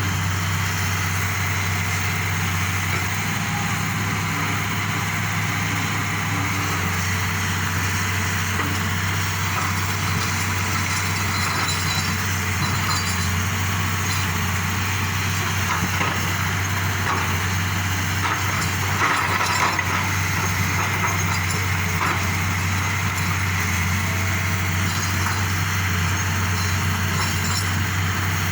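Excavator's diesel engine running steadily, with a few irregular knocks near the middle.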